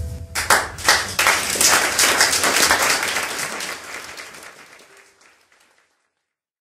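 Audience applause right as the last music note stops, breaking out about half a second in, then fading away to silence within a few seconds.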